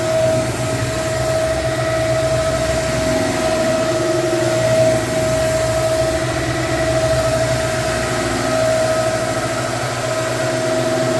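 Floor-cleaning extraction machine running steadily as it sprays cleaner and vacuums the dirty solution back up off the hardwood: a constant whine over a low hum and hiss.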